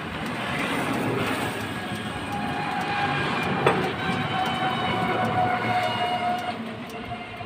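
Steady rushing mechanical noise with a whine in it, swelling and then fading away near the end, and one sharp knock about three and a half seconds in.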